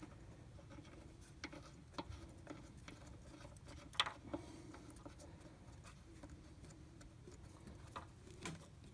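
Faint scattered clicks and taps from hands and tools handling a car A/C refrigerant pressure sensor as it is screwed by hand into its aluminium line block, over a faint low hum.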